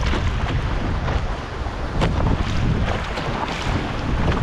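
Strong wind buffeting the microphone in gusts, with water splashing and lapping around a canoe on choppy water and a few sharp knocks.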